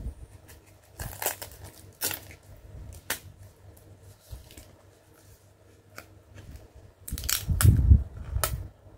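Thin cardboard craft sheet being handled and folded: three sharp paper snaps about a second apart, then crinkling and crackling with dull knocks near the end as a punch-out piece is pressed out of the card.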